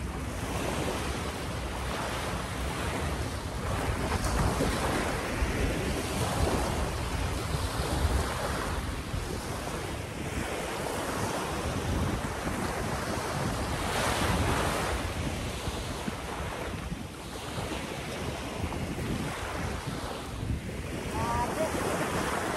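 Small waves breaking and washing up a sandy beach, the noise rising and falling every few seconds, with wind buffeting the microphone.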